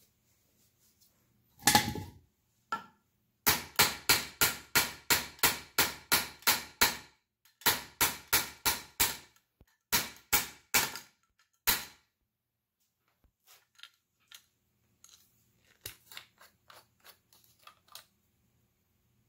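Plastic hammer-style kinetic bullet puller struck against a wooden block to knock the bullet out of a 300 Blackout cartridge: a single sharp knock, then runs of knocks at about three a second, about a dozen, then five, then four. After that come lighter clicks as the puller's cap is unscrewed.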